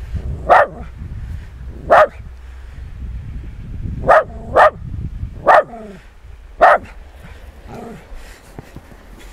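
West Highland White Terrier barking: about six sharp, loud barks at uneven intervals, two of them close together, then fainter near the end.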